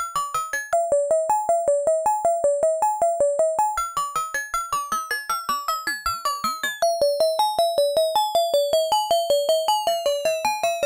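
Modular synthesizer playing a repeating sequence of short notes, about five a second, with its signal chopped by a DIY sample & hold module clocked at audio rate, a bit-crusher effect that adds gritty, metallic overtones. About halfway through, a knob is turned and those overtones sweep steadily downward in pitch while the notes keep repeating.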